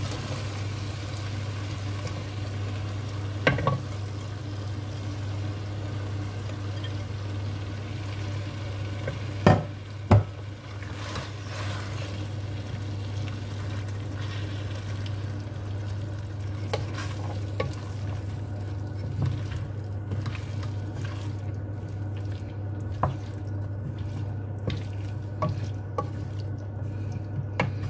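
Mixed vegetables stirred into a pan of simmering tomato stew with a wooden spoon: soft stirring and scraping, with scattered light clicks of the spoon against the pan and two loud knocks about ten seconds in, over a steady low hum.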